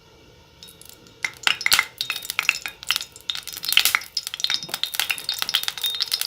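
Kitchen utensils clinking and tapping against a cooking pot in a quick, irregular run of clicks and clinks, starting about a second in.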